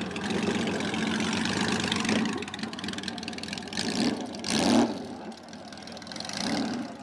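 Flat-six cruiser motorcycle running steadily, then pulling away and riding off at low speed. There is a louder swell about four and a half seconds in, then the sound gets fainter as the bike moves away.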